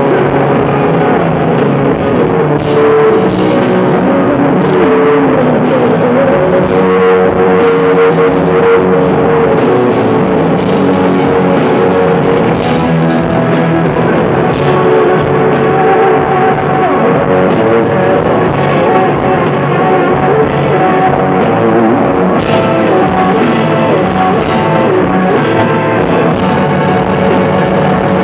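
Loud live rock music: an electric guitar played over a band with drums, heard in the hall from the audience.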